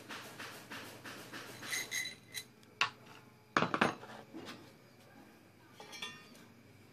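Metal clinks and knocks as a steel threaded rod and ball bearing are handled and set down on a wooden workbench, the loudest knocks coming in a quick cluster a little past halfway. It opens with a fast regular ticking, about five a second, and ends with a faint rustle of sandpaper being picked up.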